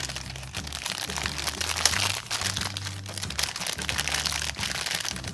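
Clear cellophane wrapping crinkling and crackling as hands pull it off a thin plastic parts tray, busiest about two seconds in.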